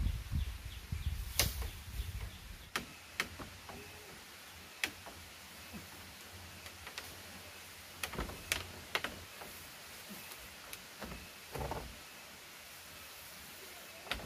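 Grass thatch being handled and laid onto a bamboo roof frame: scattered sharp clicks and knocks with dry rustling, a low rumble in the first second and a longer rustle near the end.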